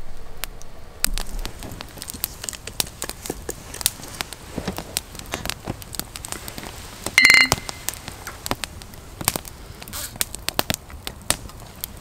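Small wood fire in a hobo stove crackling, with irregular pops and snaps. About seven seconds in there is a brief, louder high-pitched squeak.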